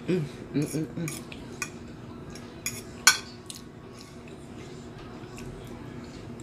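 A metal fork clicks and scrapes against a plate while eating, in a string of sharp clinks with the loudest about three seconds in. At the start there are three short hummed "mm" sounds from the eater.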